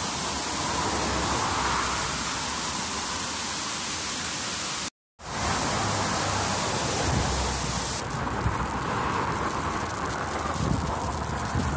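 Steady, even hiss of noise with no clear source, cutting out completely for a moment about five seconds in. From about eight seconds the hiss turns duller, and a few low bumps sound near the end.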